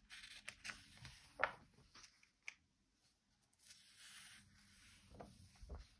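Pages of a picture book being turned by hand: faint paper rustling and flapping with a few sharp ticks, the loudest about one and a half seconds in, and a couple of soft low thumps near the end.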